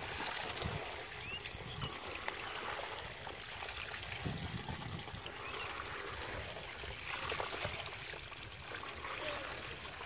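Shallow water trickling and splashing around a bamboo basket and hands handling small fish, with many small wet clicks scattered throughout.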